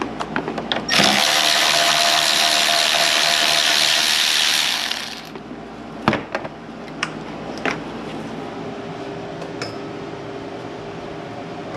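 A power tool runs steadily for about four seconds, then stops, followed by a few sharp clicks and knocks.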